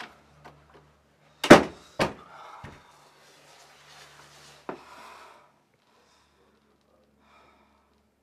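A front door slammed shut, a sharp bang about a second and a half in with a second thud half a second later, then hard breathing and another smaller knock against the door.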